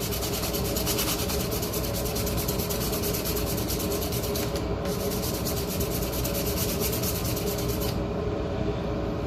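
Hand sanding with 180-grit sandpaper, rounding over the corners of a small workpiece: a steady run of rapid rubbing strokes.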